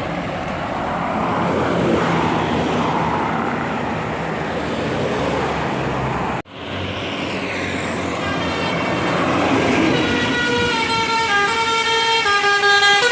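A large bus's engine running as it passes. After an abrupt cut, a telolet musical horn on a bus plays a quick melody of stepping notes, louder toward the end.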